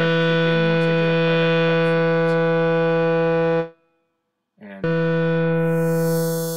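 Tyrell N6 software synthesizer holding a single bright, buzzy note rich in overtones while its filter resonance and cutoff are adjusted. The note stops for about a second a little past halfway, then comes back with a brief swoop, and its upper tone changes near the end.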